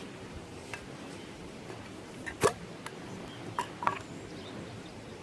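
A few sharp clicks and light taps from handling gear, the loudest about halfway through and a quick pair soon after, over a steady low background hiss.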